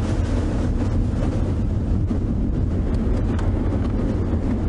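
Safari game-drive vehicle driving along a dirt track: a steady engine and road rumble, with wind buffeting the microphone.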